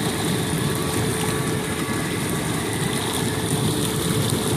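Sundance Spa hot tub's replacement 240 V air blower running, a steady hum under the churning and bubbling of the water as air is forced up through the tub's holes and jets. The blower is working after replacement, giving a nice flow of air.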